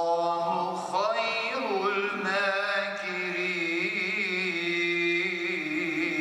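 A man's voice chanting Islamic prayer, holding long notes that waver and glide in pitch.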